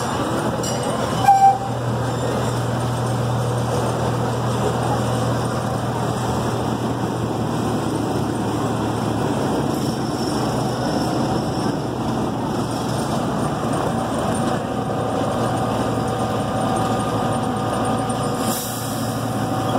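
C.P. Huntington miniature park train running steadily along its track, with a steady engine drone and rolling rumble. A short, loud, sharp sound cuts in about a second and a half in.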